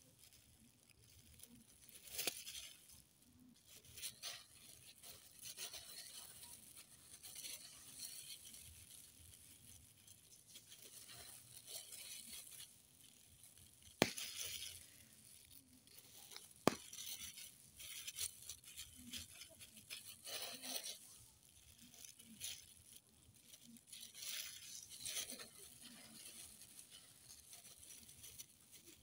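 Plastic gloves and plastic bags rustling and crinkling as pieces of marinated pork are handled and pushed onto metal skewers, in short bursts throughout. Two sharp clicks sound about halfway through, a few seconds apart.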